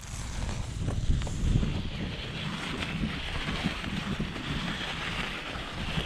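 Wind rushing over the microphone of a handlebar camera, with the steady rumble and hiss of mountain-bike tyres rolling over loose volcanic gravel on a fast descent. The sound starts at the beginning, as the bike gets rolling.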